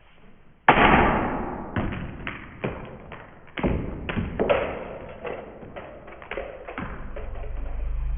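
A plastic Smashers toy capsule banged hard against the floor again and again to break it open: a run of sharp thumps, two or three a second, the first the loudest.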